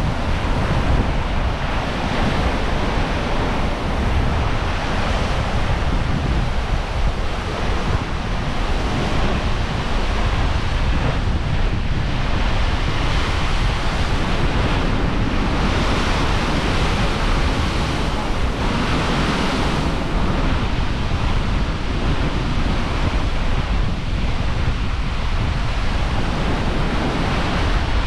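Heavy Caribbean surf crashing against limestone cliffs and pouring back off the rock ledges in white water, in repeated surges that are loudest around the middle. Wind buffets the microphone with a low rumble throughout.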